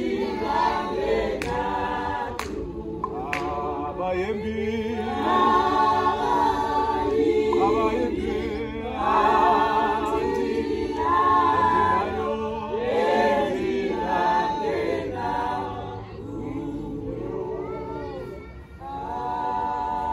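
A group of women singing together unaccompanied, a hymn-like song in phrases of held notes, softer toward the end before a last phrase.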